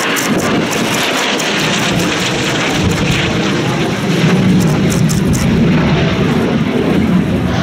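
Jet engine noise of a single-engine Chengdu J-10 fighter flying an aerobatic display overhead: a steady, dense rumble that grows louder about four seconds in.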